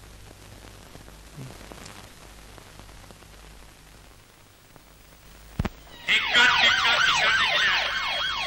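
Low room tone, a single sharp click about five and a half seconds in, then a police siren starting suddenly about six seconds in, its pitch rising and falling about three times a second in a fast yelp.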